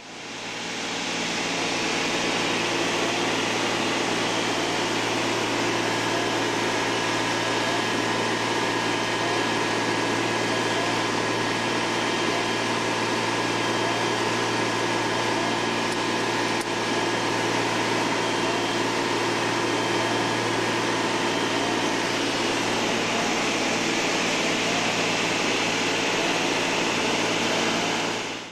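Cabin noise of a small single-engine propeller plane in flight: a loud, steady drone of engine and propeller.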